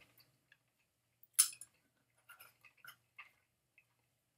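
Quiet chewing and small mouth clicks from someone eating a piece of chicken, with one sharper, short noise about a second and a half in.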